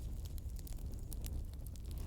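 Wood fire crackling in a fireplace: frequent small sharp pops and snaps over a steady low rumble of the flames.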